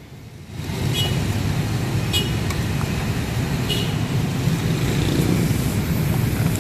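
Steady low rumble of street traffic around a martabak manis stall, with a few short ringing clinks of cooking utensils as batter is scooped from the bucket and poured into the pan.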